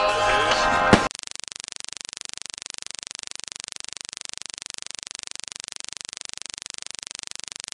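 Music with a voice for about the first second, cut off by a sharp click. Then a steady hiss that buzzes with a rapid, even pulse.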